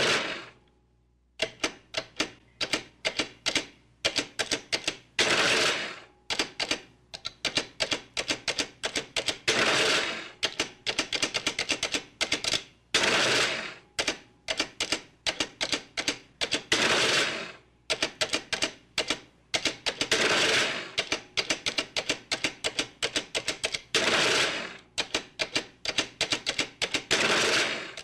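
Adding machine being operated: runs of quick key clicks, each followed by a longer mechanical cycle lasting about a second, repeating every three to four seconds.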